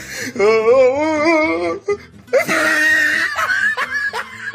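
A woman laughing hard: a long wavering, high cry of laughter, then a breathy, wheezing shriek, and short bursts of laughter near the end.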